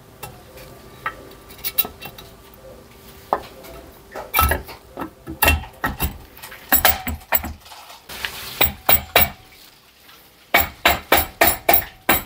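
Aluminium crankcase halves of a Kawasaki ZX130 engine knocking and clinking as the left case half is fitted back on and seated, ending in a quick, even run of taps, about four a second.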